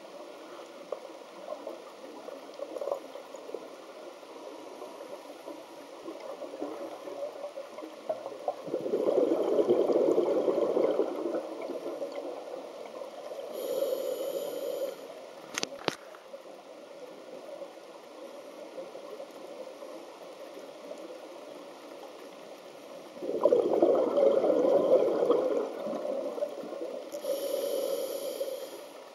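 A scuba diver's regulator breathing, heard underwater: two long gushes of exhaust bubbles, one about eight seconds in and one about twenty-three seconds in, each followed by a shorter hiss. There is a single sharp click near the middle.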